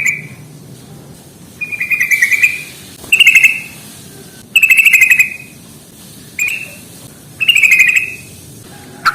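Yellow-vented bulbul giving repeated chattering phrases: each is a rapid run of harsh notes lasting under a second, and they come about once every second or so. These are the wild-type, fighting-style calls that bird keepers play to provoke their own bulbuls into calling.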